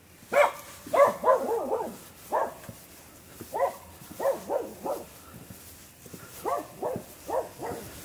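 Small dog barking repeatedly, about fifteen short barks in quick clusters of two to five.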